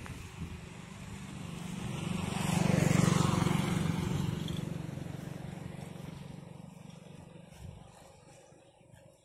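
A motor vehicle's engine passing by. It grows louder over about two seconds, peaks about three seconds in, then fades away over the next several seconds.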